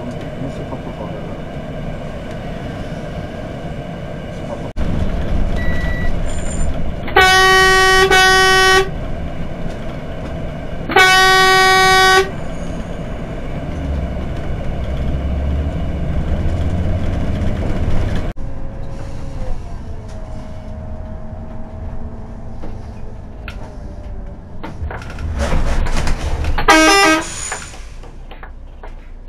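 A bus horn honking: a long blast with a short break in it, another long blast about three seconds later, and a shorter blast near the end, over the steady running of the bus's engine and road noise.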